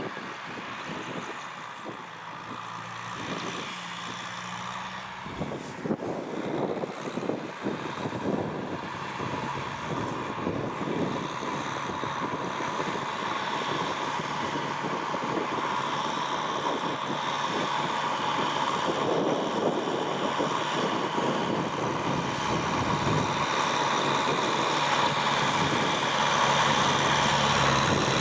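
Kubota M6040SU tractor's diesel engine running, growing gradually louder.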